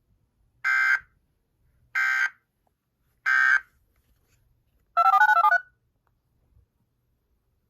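Emergency Alert System end-of-message data code: three identical short bursts of screeching digital tones, each about a third of a second and about a second and a quarter apart, marking the end of the tornado warning. About five seconds in comes a quick run of stepping electronic beeps lasting under a second.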